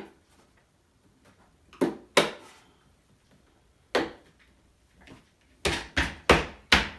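Plastic side cover of a gaming chair being pressed and tapped onto the seat frame, giving sharp knocks and snaps: two about two seconds in, one near the middle, then a quick run of five near the end as it clicks into place.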